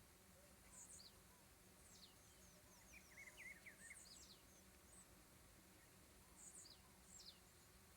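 Faint, steady bee-like buzzing hum from a swarm of beetles, the kind called 'vaquinha' locally. Scattered short falling bird chirps sound over it, a cluster about three to five seconds in and a few more near the end.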